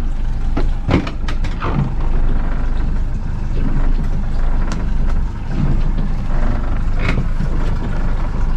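An engine running with a steady low rumble, with a few short knocks over it.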